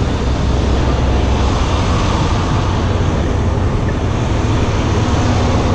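Steady low rumble and hiss of a semi truck running, with no distinct events.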